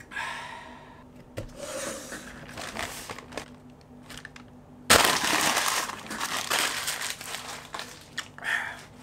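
Brown paper takeaway bag crinkling and rustling as it is handled and opened. The crinkling comes in a sudden loud burst about five seconds in, then softer rustling as the food is taken out.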